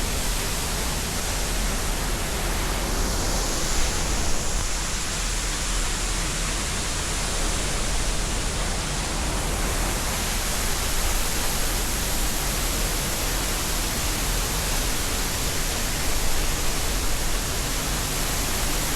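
Tat Huang Waterfall rushing: a steady, even roar of falling water with no break.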